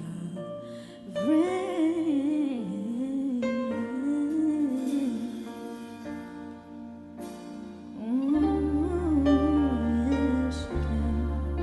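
A woman sings a slow pop ballad with long held notes that bend and slide, over soft instrumental accompaniment. A deep bass comes in about eight seconds in.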